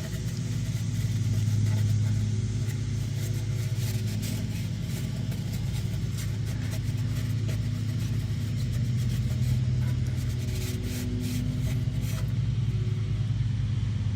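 A steady low mechanical drone, like an engine or machine running, with a few light clicks.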